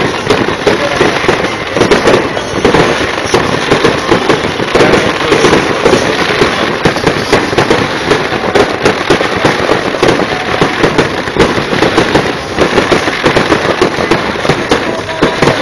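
Fireworks display going off in rapid succession: a continuous, dense crackle of many sharp bangs and pops.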